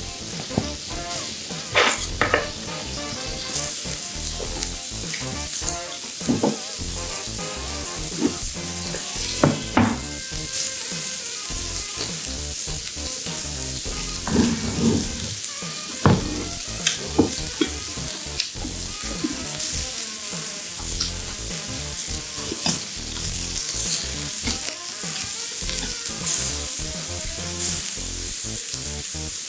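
Slices of beef sizzling on a ridged cast-iron tabletop grill plate over a small flame: a steady sizzle, with scattered sharp clicks and knocks.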